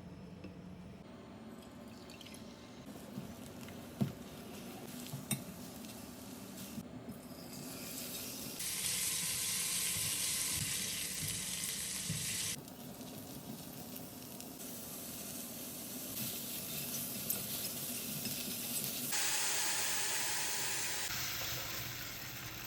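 Food frying in oil in a pot, sizzling, with a few knocks and scrapes of a utensil stirring it. The sizzle comes in two louder stretches that start and stop abruptly.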